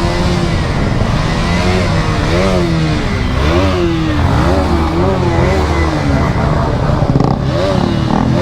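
Motorcycle engine being revved, the throttle blipped up and down again and again so the pitch rises and falls, with a few sharp cracks near the end.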